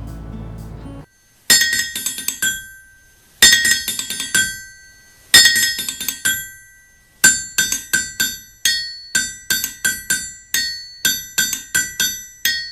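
A short stretch of outro music ends about a second in. Then come sharp, ringing strikes on a fixed pitch: three quick clusters about two seconds apart, followed by a steady run of about two strikes a second.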